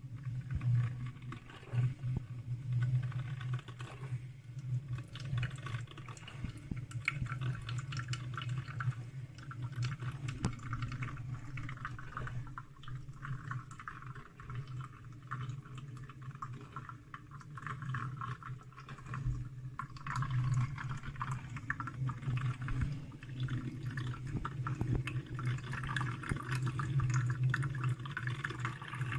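Salter one-cup filter coffee maker brewing: water gurgling, spattering and dripping through the filter into the mug, over a steady low hum.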